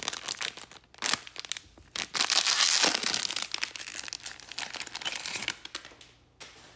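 Plastic wrapper of a 2021 Bowman baseball card pack crinkling and tearing as gloved hands rip it open, loudest a couple of seconds in and dying away near the end.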